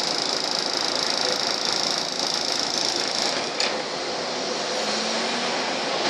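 Interior running noise of a Volvo double-decker bus on the move: a steady engine and road noise with a high hiss that eases slightly about three seconds in, and one sharp click just after.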